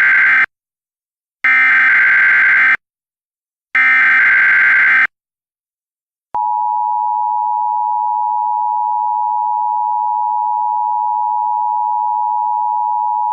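Emergency Alert System broadcast signal: the SAME header's harsh digital data bursts, each about a second long, with the first already under way and two more after it. These are followed by the EAS two-tone attention signal, a steady tone held for about seven seconds that cuts off sharply, announcing a severe thunderstorm warning.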